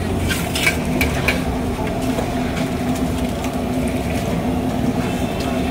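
A steady mechanical drone, such as a motor or burner, with a few light clinks of metal cookware in the first second and a half.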